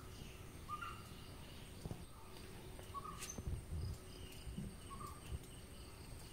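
Outdoor natural ambience with short chirps every second or two and fainter higher calls, over a few low bumps.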